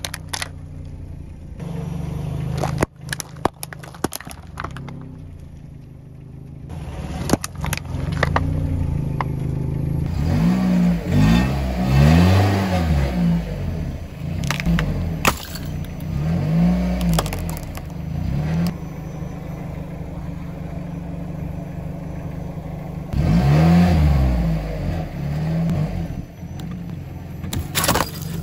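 A car engine idling and revving up and back down several times, while its tyre crushes objects with scattered crackles and snaps. Near the end, a large block of ice cracks and shatters under the tyre with several sharp cracks.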